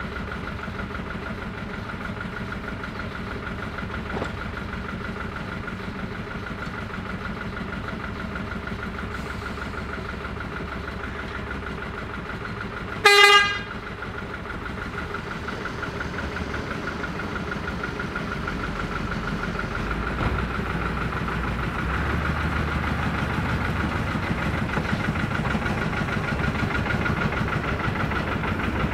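Narrow-gauge diesel locomotive engines running steadily at idle. About halfway through comes one short toot on a locomotive horn. Near the end a low engine rumble builds and grows louder as a locomotive works.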